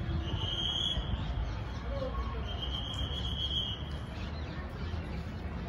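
Outdoor ambience: a steady low rumble, with two high-pitched calls from a small animal. The first is short, near the start, and the second, longer one comes about two and a half seconds in.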